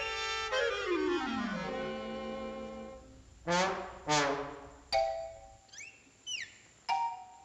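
Orchestral cartoon score. A sliding run of notes falls in pitch over the first two seconds into a held chord, followed by short brass stabs that each drop in pitch, with a few brief high squeaky glides between them.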